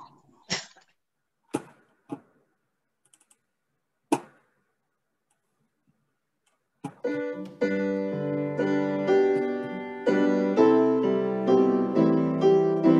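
A few sharp computer clicks, then about seven seconds in a recorded piano accompaniment for a hymn starts, playing the tune in full chords.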